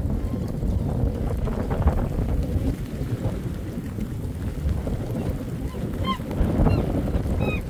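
Wind buffeting the microphone with a steady low rumble. Near the end come a few short, high squeaky calls from an animal.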